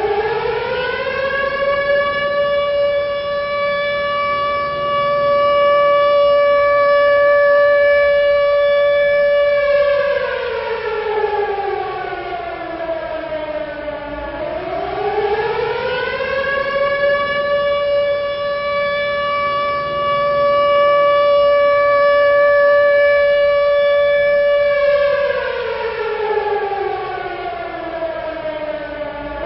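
Civil defense siren wailing: its pitch rises, holds steady for several seconds, then slides down, twice over, and starts rising again near the end. It is the 9:05 remembrance siren of 10 November, marking the moment of silence for Atatürk.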